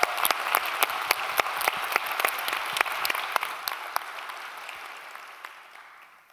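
Applause: many hands clapping together, which thins out and fades away over the last two seconds.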